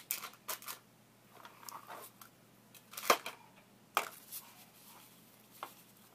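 Close handling noise: scattered clicks, taps and short rustles, with a sharp knock about three seconds in and another about four seconds in.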